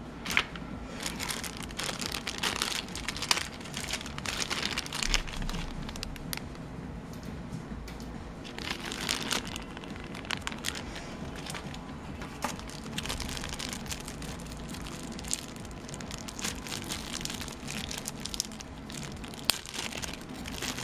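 Clear plastic packaging bags crinkling and rustling in irregular bursts as they are handled, with occasional sharp clicks.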